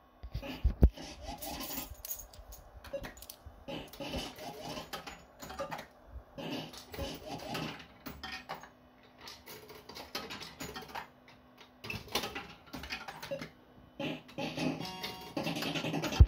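Barcrest Alphabet fruit machine in play: its electronic bleeps and jingles sound over the clicking of the reels spinning and stopping, in short bursts about every second. There is a sharp knock about a second in.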